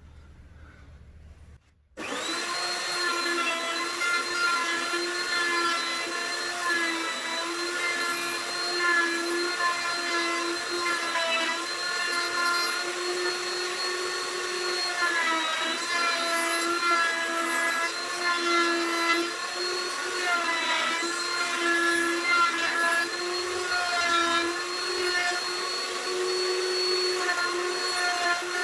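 Electric router fitted with a 1/4-inch roundover bit starts about two seconds in and runs with a steady high whine. Its pitch dips briefly a few times as the bit rounds over the edges of the wooden knobs.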